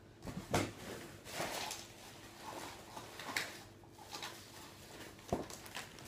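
Gift items and their packaging being handled: a few irregular sharp knocks, loudest about half a second in, with soft rustling in between.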